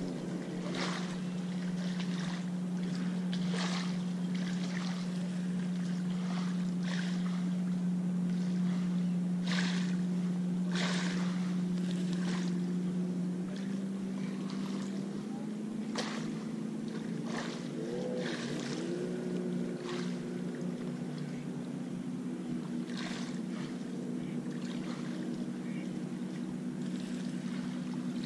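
A motorboat engine droning steadily across the water, its pitch stepping up slightly about halfway through, with scattered short clicks and rustles close by.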